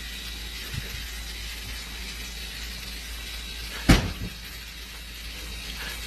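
Steady background hiss with a single sharp knock about four seconds in, and a fainter click just before the first second.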